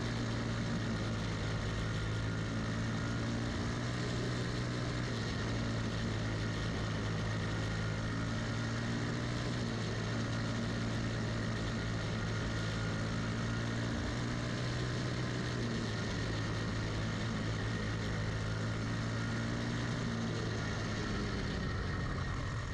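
Champ kart's Briggs & Stratton Animal single-cylinder four-stroke engine running hard around a dirt oval, heard onboard, its note holding mostly steady with a few slight dips in pitch.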